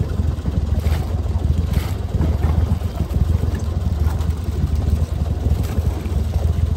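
Steady low rumble out on open water, with a few faint clicks and rattles as a wire crab trap is pulled from the lake and handled.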